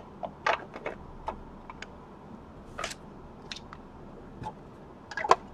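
Irregular light clicks and taps, about a dozen, with the loudest cluster near the end.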